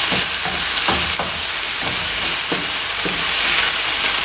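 Skinless chicken pieces sizzling in oil in a non-stick frying pan as they brown, with a wooden spatula repeatedly scraping and knocking against the pan as they are stirred.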